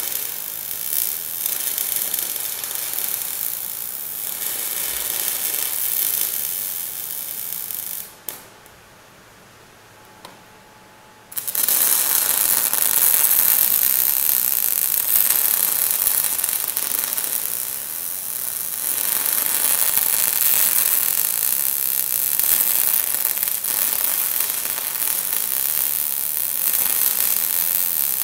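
MIG welding arc crackling steadily as build-up weld is laid on the steel frame. It stops about eight seconds in, then strikes up again about three seconds later and runs on.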